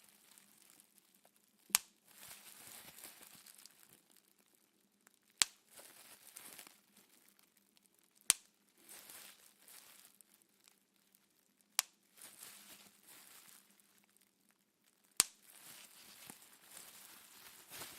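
Bubble wrap being popped one bubble at a time: five sharp pops a few seconds apart, each followed by the crinkle of the plastic sheet being handled.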